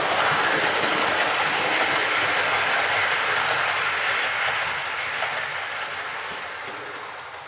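OO gauge model train, a Hornby P2 locomotive hauling four teak coaches, running past on the track: a steady rumble of wheels on rail with faint clicks, fading away over the last three seconds as the train moves off.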